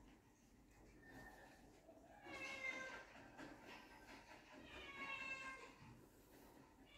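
Puppies whimpering in high, drawn-out whines: a faint one about a second in, then two longer ones about two and five seconds in, each falling a little in pitch.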